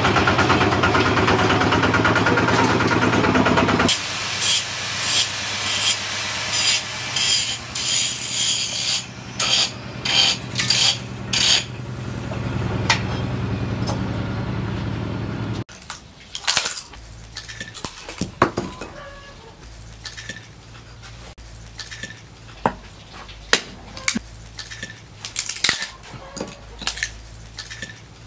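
A steady machine hum under loud hissing noise while a heavy disc-plough steel blade is worked in a water trough, with a run of sharp knocks about once a second in the middle. After a drop in level come light, irregular knocks of a knife splitting small pieces of wood.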